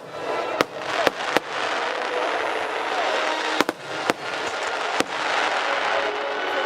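Aerial fireworks shells bursting: about seven sharp bangs at uneven intervals over a continuous noisy rush from the display.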